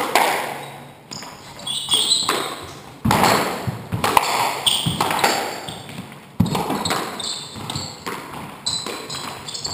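Squash rally: the ball cracking off rackets and the court walls about once a second, each hit ringing in the hall, with shoes squeaking on the wooden floor between strokes.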